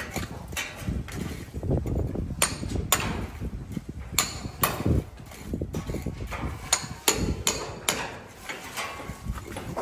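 Hammering: about a dozen sharp, unevenly spaced knocks, with low handling noise between them.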